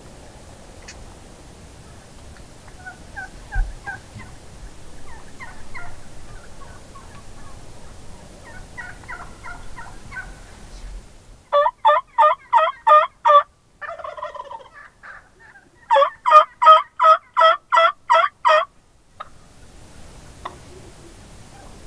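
Wild turkeys calling: fainter calls at first, then a loud run of about six yelps, a softer warbling call, and a second loud run of about nine yelps.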